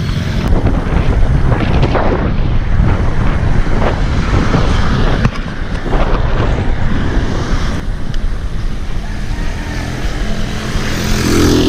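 Wind rushing over a handlebar-mounted GoPro's microphone on a moving road bicycle, with motor traffic passing on the road.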